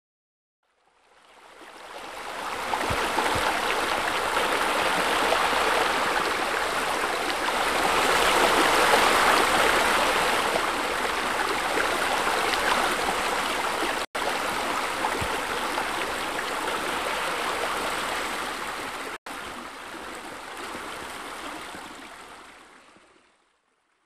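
Running water of a small waterfall and stream, a steady rushing splash that fades in, drops out for an instant twice in the second half, and fades away near the end.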